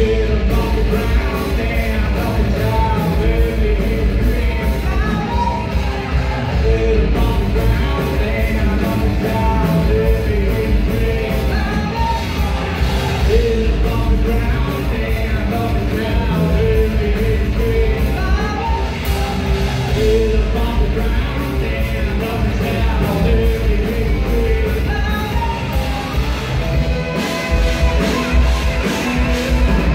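Live rock band playing: a lead singer singing and yelling over two electric guitars, bass guitar and a drum kit, all loud and continuous.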